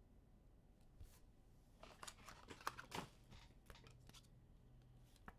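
Faint rustling and clicking of trading cards and their wrappers being handled, with a cluster of sharp little clicks about two to three seconds in.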